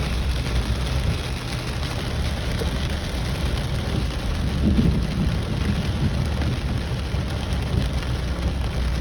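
Heavy rain falling, a steady hiss over a low rumble.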